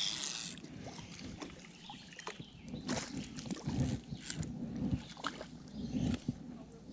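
A small bass being reeled in and lifted out of the water: a short splash right at the start, then light sloshing with scattered clicks and soft knocks.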